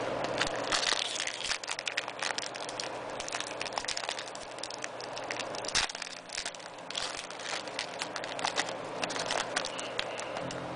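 Foil wrapper of a basketball trading-card pack crinkling and crackling as it is handled and torn open by hand, a dense run of small irregular crackles with one sharper click about halfway through.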